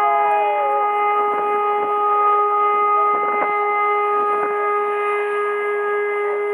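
Ship's horn held in one long, steady blast, a single loud unwavering tone.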